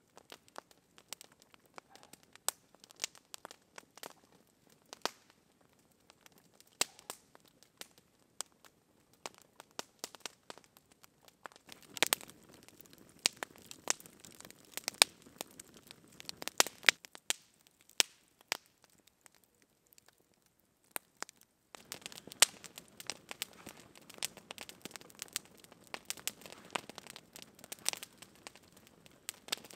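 Long wood campfire burning, crackling with sharp separate pops throughout. The crackling grows denser for a few seconds around the middle and again through the last third.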